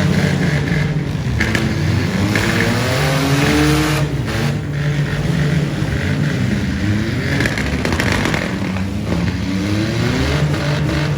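Several six-cylinder demolition derby cars' engines running and revving together, their pitches rising and falling as the drivers accelerate and back off.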